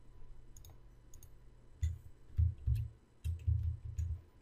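A computer mouse clicking now and then, with several low dull thumps between about two and four seconds in.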